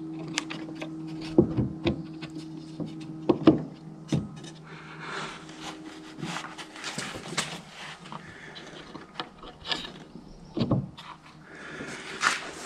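Pieces of wood knocking and rubbing as they are handled and fitted, with about a dozen sharp irregular knocks over a steady low hum that dies away about halfway through.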